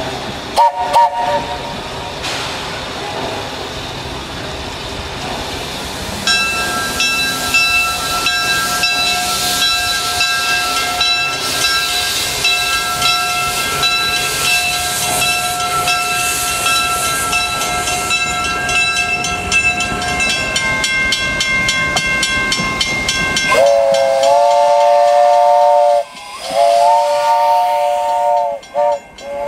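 Steam locomotive hissing steam while its whistle sounds: a brief chord about a second in, a long steady whistle note over the hiss from about six seconds, and near the end a louder multi-note chime whistle blown in a long blast followed by short blasts.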